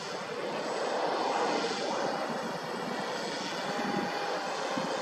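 Electric RC VTOL quadplane in fixed-wing cruise overhead, its forward propeller making a steady drone that swells slightly about a second in as it passes.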